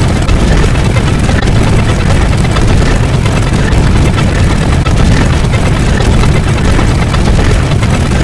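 Loud, steady rumbling noise, heaviest in the low end and without clear pitch or rhythm, like a heavy engine or aircraft.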